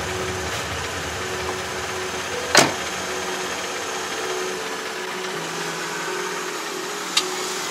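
A Mercedes-Benz W211 driver's door shuts with a single sharp thump about two and a half seconds in. The car's engine keeps running steadily as the car moves slowly off.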